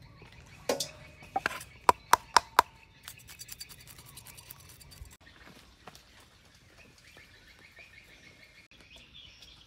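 Kitchen knife striking a wooden chopping board in about six sharp knocks while cutting small fish, then quick fine scraping ticks as the blade scales a fish. After about five seconds only faint background sound remains.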